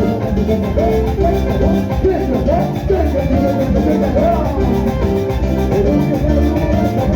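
Loud Latin dance music in a salsa style, with a steady drum beat and a melodic line bending in pitch.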